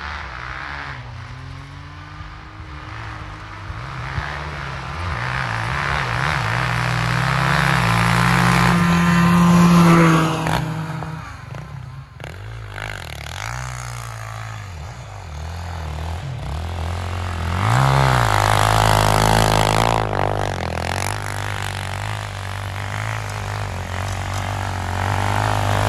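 Quad and snowmobile engines running at full throttle in a race, the engine note climbing to its loudest about ten seconds in. After a sudden break near twelve seconds, a quad engine revs up close about eighteen seconds in and keeps running.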